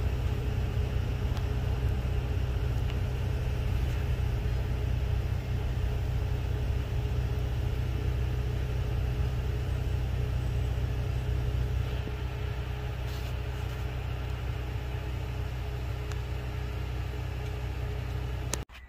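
Norfolk Southern freight train going by: a steady, loud low rumble with a low droning tone. It eases slightly about two-thirds of the way through and cuts off abruptly near the end.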